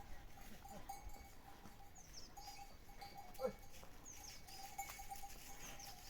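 Livestock bells on a goat and sheep flock clinking and ringing, with high, repeated falling chirps above them. A short animal call sounds about halfway through.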